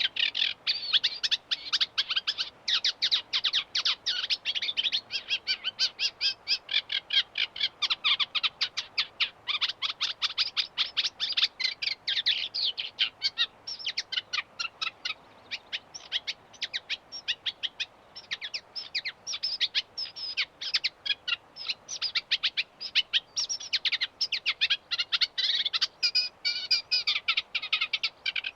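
Reed warbler singing: a long, continuous chattering song made of rapid runs of short notes, several per second, broken by a few brief pauses.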